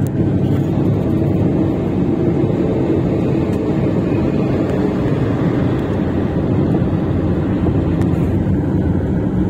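Steady, loud road and wind noise from inside a moving car, with a large truck driving close alongside.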